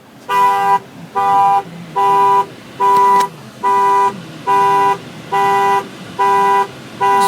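Two-tone car horn honking in short, evenly spaced blasts, a little over one a second, sounded by a K9 heat alarm because the cabin temperature has passed its 77-degree set point.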